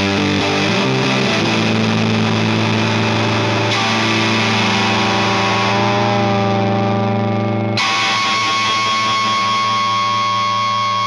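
Distorted electric guitar: a Greco ES335 played through the Black One distortion pedal into miked Vox AC15 and WASP amps. A few quick notes lead into a held chord left to sustain, and a new chord is struck about eight seconds in and rings out.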